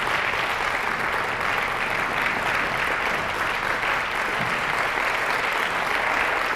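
Audience applauding: steady, dense clapping that holds an even level throughout.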